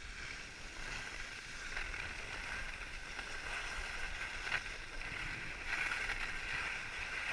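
Skis sliding and carving over packed snow: a continuous hissing scrape that swells as the skier turns, with a short sharp scrape about four and a half seconds in.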